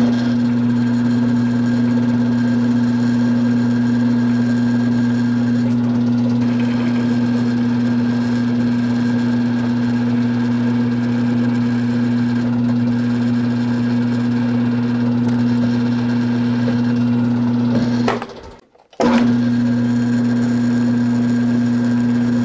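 Drill press running with a steady electric-motor hum while a twist drill bores through a steel plate into the aluminum clutch-arm casting beneath it. The hum cuts out for about a second near the end, then runs again.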